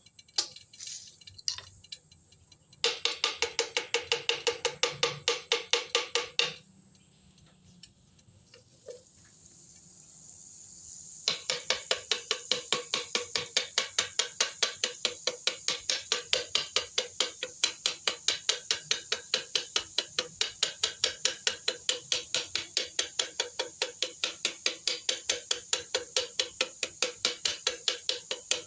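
Batter being beaten by hand in a bowl, the utensil clacking against the bowl about three times a second. It goes in a short run of a few seconds, stops, then starts again and carries on steadily through the rest.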